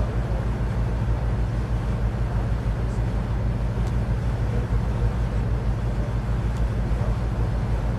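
Cruise boat's engine running with a steady low drone while under way.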